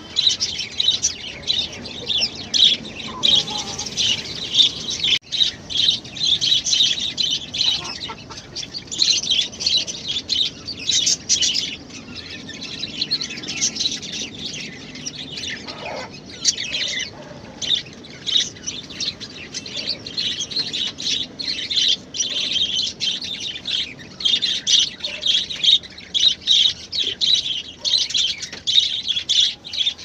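Many small birds chirping and twittering continuously, a dense overlapping chatter of short high calls.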